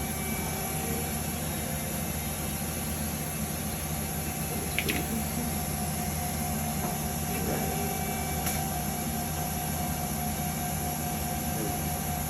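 Steady machine hum of a Haas CNC lathe and robot-arm cell running, with a faint steady whine joining about halfway through and a couple of brief clicks.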